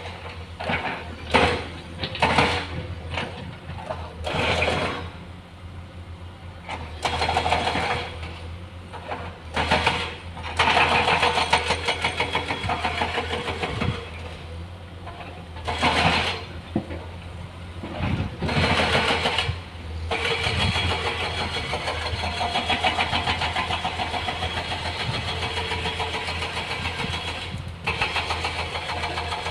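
Diesel engines of an excavator and dump truck at work, with a steady low hum underneath. The engines rise and fall in irregular bursts for the first two-thirds, then run steadily.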